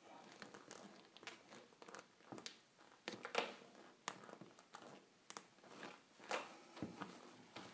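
Knife blade scraping and cutting into the plastic heel air unit of a Nike Air Max 2013 sneaker: faint, irregular crackles and scratches.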